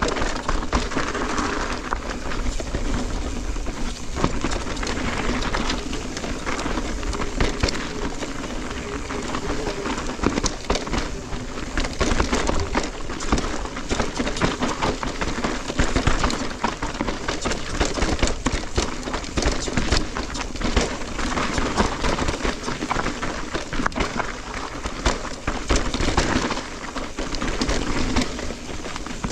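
Electric mountain bike ridden over a rough dirt trail: steady tyre and trail noise, with frequent knocks and rattles from the bike.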